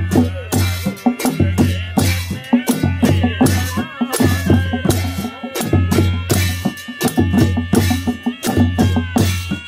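Music with a steady beat: repeated percussion hits over a bass line, with a wavering melody above.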